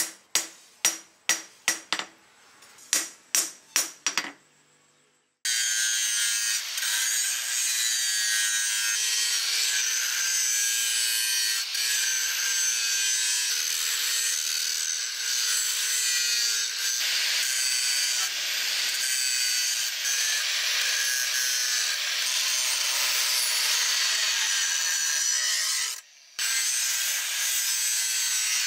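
Ringing hammer blows on a flattened rebar sword blade on a small anvil, about three a second in two short runs, then they stop. About five seconds in an angle grinder starts grinding the steel blade, a steady loud grinding hiss with a faint motor whine, cut off briefly once near the end.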